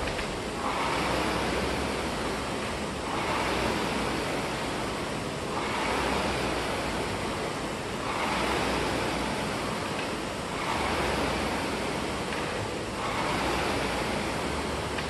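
Air rowing machine's fan flywheel whooshing under steady rowing: the rush swells with each drive stroke and fades on the recovery, six surges about two and a half seconds apart.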